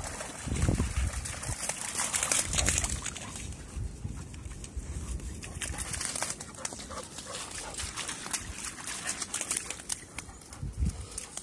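Two dogs, a yellow Labrador and a smaller tan dog, playing in shallow rock pools and wet seaweed: splashing, padding and rustling through the water and weed, with irregular clicks and a few low thumps.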